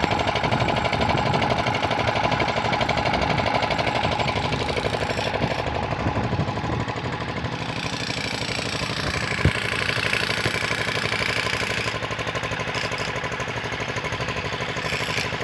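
An engine running steadily with a fast, even pulse, and one sharp tap about nine and a half seconds in.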